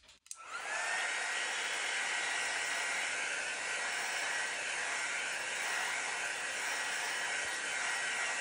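Handheld heat gun switched on and blowing steadily: a fan whine rises to a level pitch within the first second over a constant rush of air. It is being passed over wet acrylic pour paint to pop the surface bubbles.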